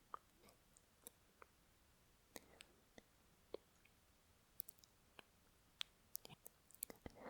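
Faint, wet mouth clicks and lip smacks recorded close to a binaural microphone. They come singly and at irregular gaps, more often in the second half.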